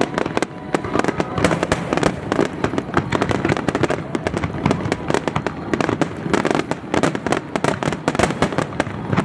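Aerial fireworks going off in a dense, continuous barrage: many bangs and crackles overlapping, several a second, without a pause.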